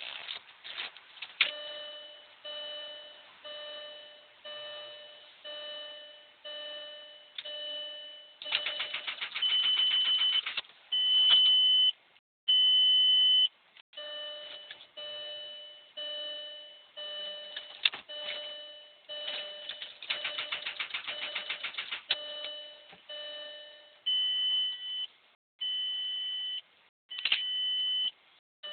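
A car's dashboard warning chime repeats about once every 0.8 seconds, with a few longer held tones. Twice the ignition is tried, giving a couple of seconds of rapid clicking and a few single clicks, and the engine never cranks or catches.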